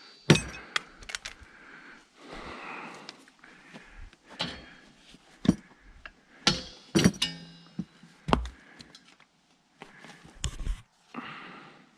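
Metal clanks and knocks from propane tank fittings being worked with hand tools: a dozen or so sharp hits, a few ringing briefly, with quieter scraping between them.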